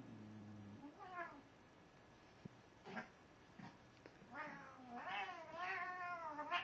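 Domestic cat yowling in protest while held and tickled under a blanket: a few short cries, then a long wavering yowl that rises and falls over the last two seconds.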